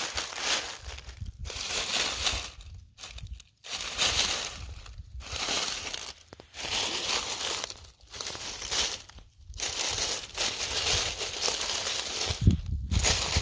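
Dry oak leaves crunching and rustling in irregular bursts with short pauses, as a nine-banded armadillo roots through the leaf litter with its snout. A heavier low thump comes near the end.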